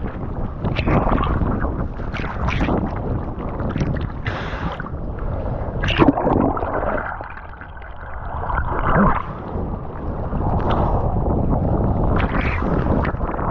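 Rough ocean water splashing and sloshing close to the microphone, with wind buffeting it. There is a sharp splash about six seconds in, and the sound goes muffled for a second or two just after.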